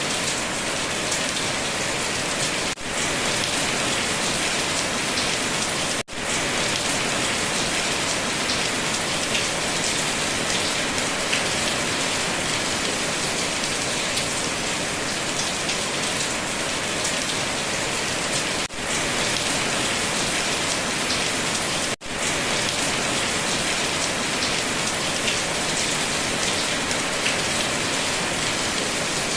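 Steady rain falling, an even hiss of many drops. The sound briefly drops out four times, each dip less than a second long.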